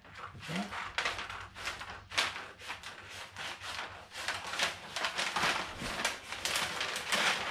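A large sheet of tracing paper rustling and crackling as it is handled and cut to size with scissors, in quick irregular crinkles that grow louder near the end.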